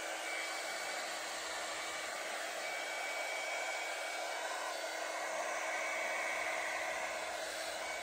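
Revlon One-Step Volumizer hair-dryer brush running steadily: a continuous rush of blown air with a steady hum underneath, as the round brush works through a section of hair.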